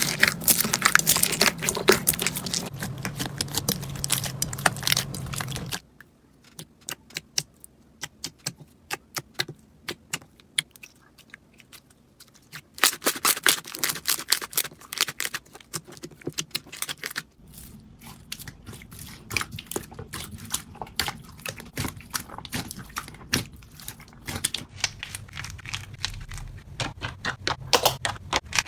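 Slime being squeezed and poked by hand: a long run of small sharp clicks and crackles. The clicks thin out and grow quieter for a stretch in the middle, then turn dense again.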